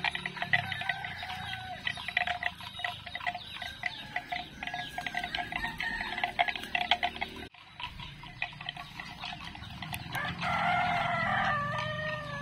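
Domestic chickens clucking, with a rooster crowing about ten seconds in, a held call that falls in pitch at the end. Under the clucking in the first half runs a rapid dry ticking.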